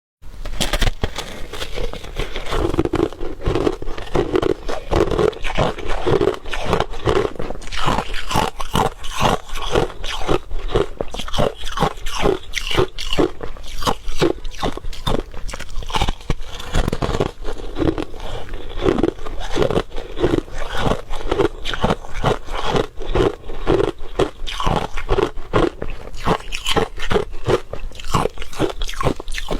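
Crushed ice being bitten and chewed close to the microphone: a rapid, steady run of loud crunches, about two to three a second.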